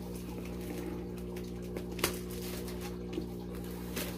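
Plastic shrink wrap on a skateboard deck crackling as it is handled and peeled, with a few sharp crinkles, over a steady low hum.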